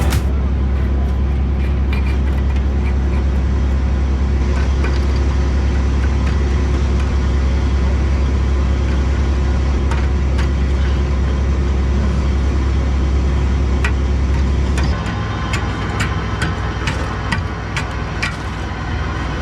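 A motor vehicle's engine running with a steady low drone that drops in level about fifteen seconds in, with a scatter of sharp clicks near the end.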